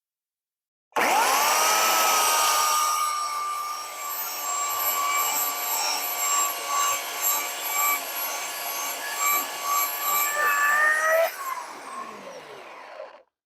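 Oregon CS1500 15-amp corded electric chainsaw starting about a second in with a rising whine, then running steadily as it cuts into the tree trunk, its level wavering under load. Near the end the trigger is released and the motor winds down with a falling whine.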